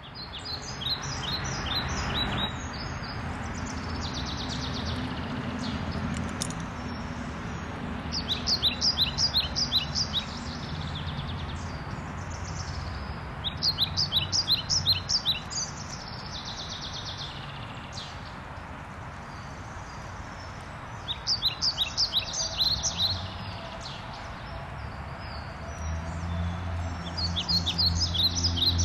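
A songbird singing five bursts of rapid, high chirps, spaced several seconds apart, over a steady low outdoor rumble that grows a little near the end.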